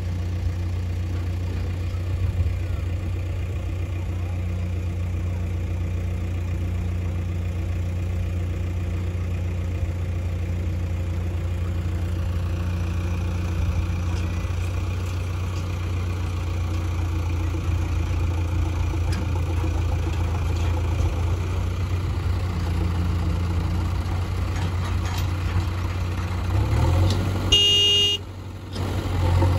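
Diesel engines of a JCB 3DX backhoe loader and a Sonalika DI 734 tractor running at a steady low hum while the tractor and trolley pull up to the backhoe. A brief horn toot sounds near the end.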